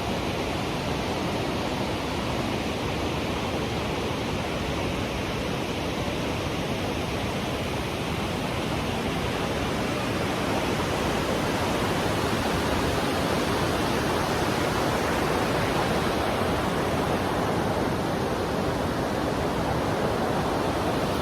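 Steady rushing of a powerful waterfall close by, an even hiss with no breaks.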